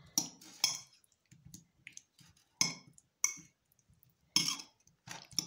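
A metal spoon clinks against a ceramic plate while cucumber slices are stirred into mayonnaise: about seven sharp, irregular clinks, with soft mixing between them.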